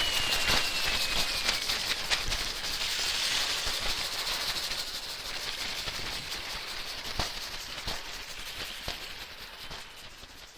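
Rain stick tipped over, its pellets trickling down inside in a steady rain-like hiss that slowly fades away as they run out. A thin whistle-like tone falls away in the first second or two.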